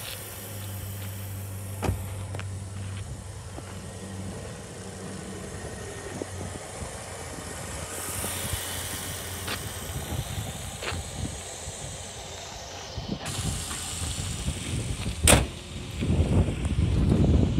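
Wind and handling noise on a phone microphone, with a steady low hum that fades out after the first few seconds. There are scattered small clicks, one sharp click a little before the end, and a loud rumble of wind noise near the end.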